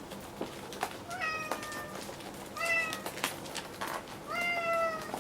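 A cat meowing three times, each call rising at the start and then held; the middle one is short. A few short clicks fall between the calls.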